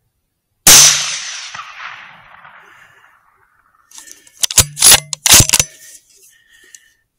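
A single .243 Winchester rifle shot, its report rolling away over about two seconds. About four seconds in comes a quick run of four or five loud sharp clacks without echo, typical of the rifle's action being worked to chamber another round.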